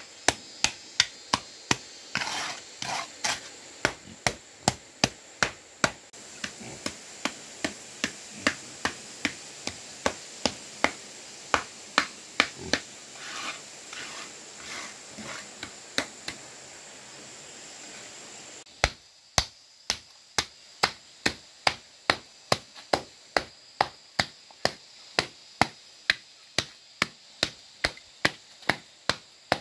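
Evenly spaced chopping strokes, a little over two a second, each a sharp knock. About two-thirds of the way through, the background hiss drops away suddenly while the strokes carry on.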